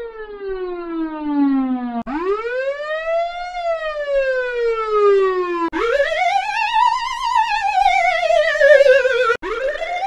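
Old police car siren wailing in edited variations. First comes a falling wail, then about two seconds in it restarts with a fresh rise and slow fall. Near the middle a higher wail rises and falls with a fast warble laid over it.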